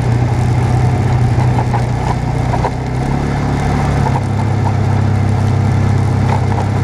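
Off-road vehicle's engine running steadily as it drives over a rough dirt trail, its note shifting about three to four seconds in, with light clicks and rattles over it.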